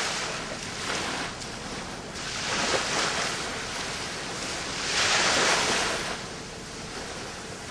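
Waves washing in, a rushing noise that swells and fades about every two and a half seconds, loudest about five seconds in.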